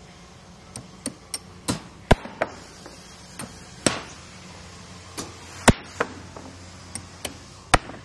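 Irregular sharp clicks and knocks of hard plastic wall-fan parts being handled and fitted together, about sixteen in eight seconds, the loudest about two seconds in, near the middle and just before the end. A steady low hum runs underneath.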